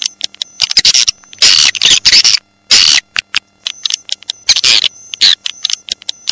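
Swiftlet lure call ('suara tarik'): bursts of rapid, high twittering chirps about half a second to a second long, with quick clicking between them. It is the kind of recording played from swiftlet houses to draw the birds in.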